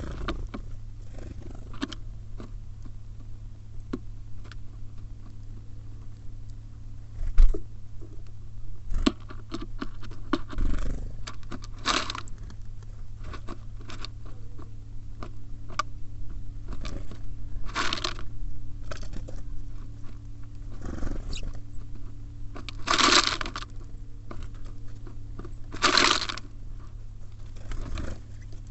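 Small songbirds at a wooden bird feeder, pecking and cracking seeds: irregular sharp clicks and taps with scraping, broken by a few short, louder rustling bursts. A steady low hum runs underneath.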